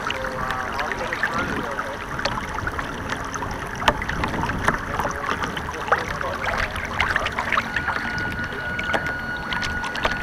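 Water splashing and rushing along the hull of a radio-controlled model boat, heard from a camera on board, with many small sharp slaps. A steady high whine joins about eight seconds in.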